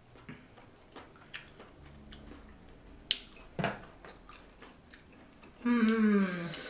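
Small wet clicks and squishes of hands peeling shellfish and of eating, with a sharp crack about halfway through. Near the end, a woman's long, falling hummed "mmm".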